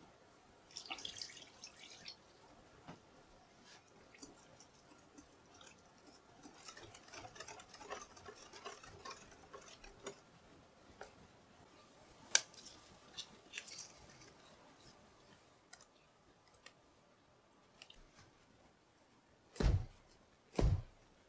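Soft scraping and wet clicks of thick chocolate cake batter being worked and poured from a glass bowl, then a metal cake tin of batter dropped twice onto the counter near the end, two loud thumps about a second apart, to knock out air bubbles.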